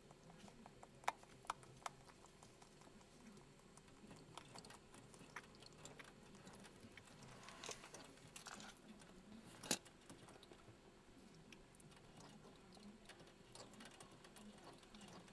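Guinea pig drinking and chewing at the tip of a syringe, faint wet smacking with scattered small clicks and a few sharper ones.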